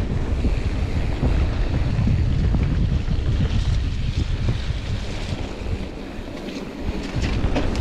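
Wind buffeting the camera microphone and the rumble of a mountain bike rolling fast over a dirt singletrack, with a cluster of sharp rattles from the bike near the end.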